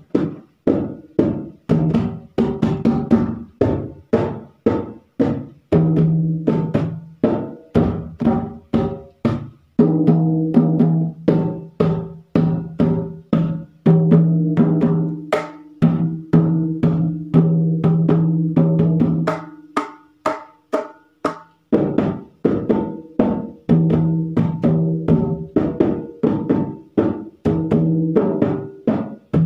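Dholak, a two-headed barrel drum, played by hand in a fast steady rhythm: deep ringing bass strokes mixed with sharp higher slaps and taps. The playing eases off briefly about two-thirds of the way through, then picks up again.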